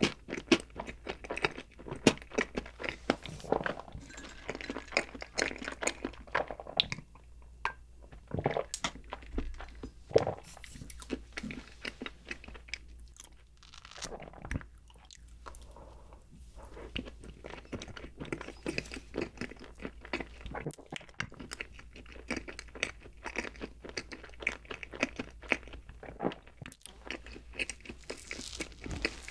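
Close-miked mouth chewing a bite of chocolate cake: a dense run of small clicks and smacks, thinning to quieter stretches in the middle.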